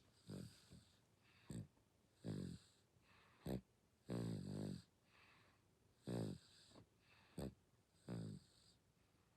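Six-month-old baby snoring in sleep: a run of faint, short snores roughly every second, longer ones mixed with brief ones.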